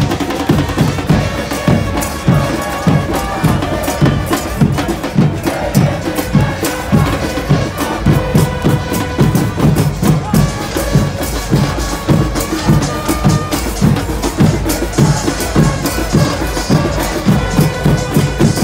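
A supporters' bass drum beaten in a steady rhythm, about two to three beats a second, with a stadium crowd of football fans singing a chant along with it.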